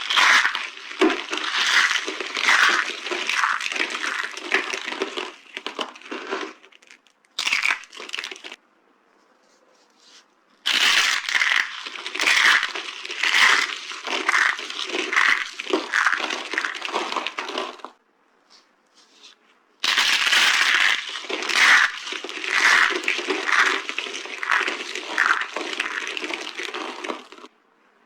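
Dry green soap being crushed, crackling and crunching in repeated squeezes, each with a louder crunch. It comes in three long runs with short pauses between them.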